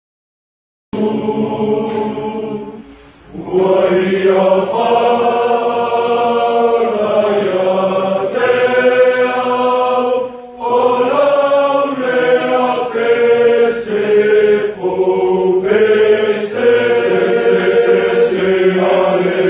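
American Samoa high school football players singing together as a group: a slow, choir-like song of held notes in many male voices, starting about a second in.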